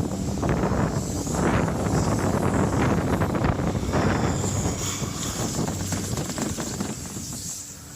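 Wind rushing over the microphone while skiing downhill, with the hiss and scrape of skis on snow swelling and fading with each turn, then easing near the end.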